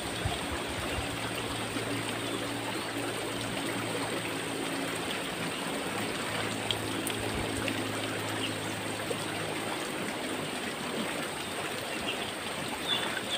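River water flowing and trickling steadily, with a faint low hum under it that fades out about ten seconds in.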